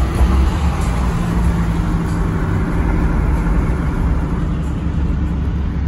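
Pickup truck engine and exhaust running at a steady cruise, heard from inside the cab while driving, with a strong low rumble and road noise.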